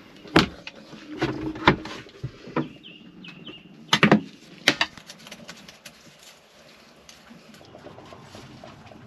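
Several sharp knocks and clunks of tools and parts being handled on a fibreglass boat cockpit, loudest near the start and about four seconds in. A bird chirps briefly three times in between.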